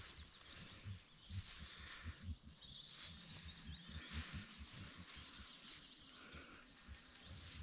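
Wild birds chirping in quick repeated trills, over a faint, irregular low rumble.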